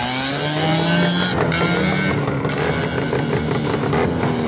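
Dirt bike engine revving hard as the motorcycle launches from the start line and accelerates away, its pitch gliding up and down in the first two seconds before the engine note fades into a rushing noise.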